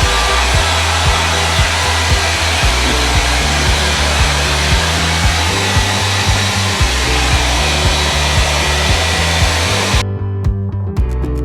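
Blow dryer running steadily on a wet husky's coat, over background music with a steady beat. The dryer cuts off suddenly near the end, leaving only the music.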